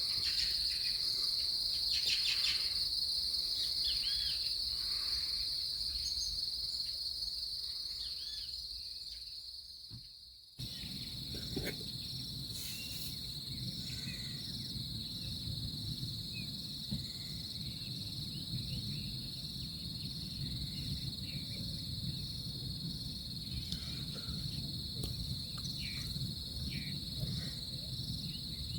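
Insects, likely crickets, chirping in a steady high-pitched chorus with a few scattered short calls. About a third of the way through the sound fades and cuts, then the chorus returns with a low rumbling noise under it.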